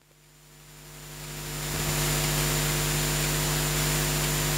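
Steady electrical hum and hiss from the sound system, fading in over about two seconds after an abrupt cut.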